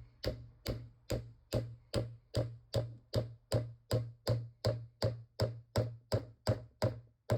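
A hammer tapping glued wooden dowels into a cricket bat to hold an inserted repair piece firm: a steady run of sharp knocks, a little over two a second.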